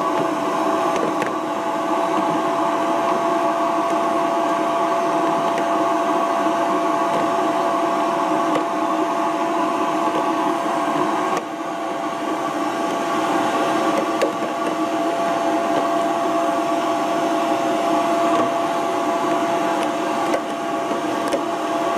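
Vacuum cleaner running steadily while cleaning dust from under a refrigerator: a constant rush of air with a steady whine over it, dipping briefly about halfway through.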